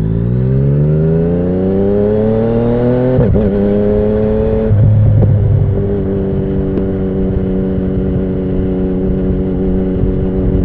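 2017 Yamaha MT-09's 847 cc inline-three through an Akrapovic Racing Line carbon full exhaust, accelerating with the engine note climbing steadily for about three seconds, a brief dip, then dropping about five seconds in to a lower steady note as the bike cruises.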